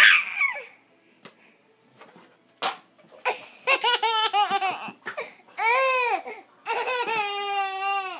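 A baby laughing hard in several bouts of quick, high-pitched pulses, the last one a long drawn-out high laugh near the end.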